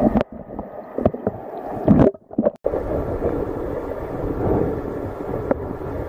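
Muffled rush of stream water heard through an underwater camera, with several knocks and bumps in the first two and a half seconds. The sound cuts out briefly, then settles into a steady, dull water rumble.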